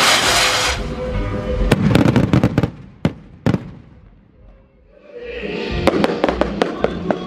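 Fireworks going off: a loud hissing whoosh at the start, then a run of sharp cracks, a short lull near the middle, and another rapid run of crackling pops near the end, with music underneath.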